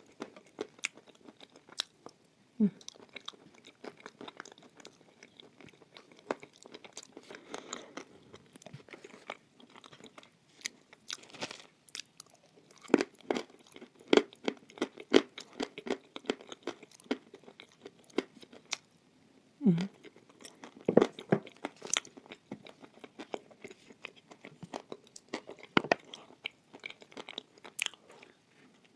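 Close-miked chewing of a mouthful of white chalk paste, with many irregular crunches and wet mouth clicks.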